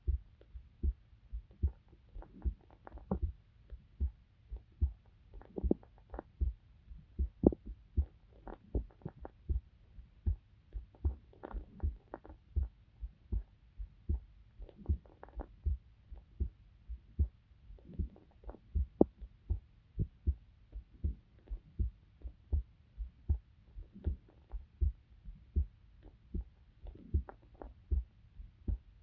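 A person's heartbeat heard up close through a microphone, a steady, regular series of low thumps.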